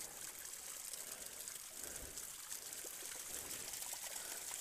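Water trickling and pouring steadily from a water spout.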